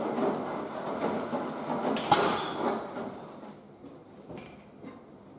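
Electrolux W465H washing machine running with a rushing, hissing noise that dies away about three seconds in, with a sharp click just after two seconds and a few faint clicks after it.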